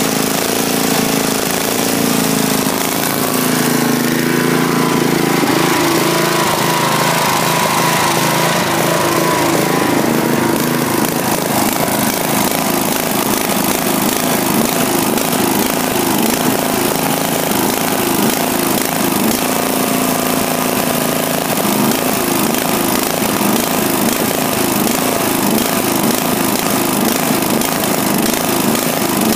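Riding lawn mower's 12.5 hp engine running loudly on nitro fuel through an open muffler. Its speed wavers for the first several seconds, then it settles into a steady run.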